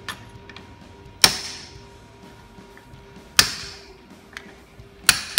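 Hammer striking an old bearing used as a drift to knock the old bearing centre out of a clutch release bearing held in a steel vise: three hard metallic blows about two seconds apart, each ringing briefly, with a few lighter taps between.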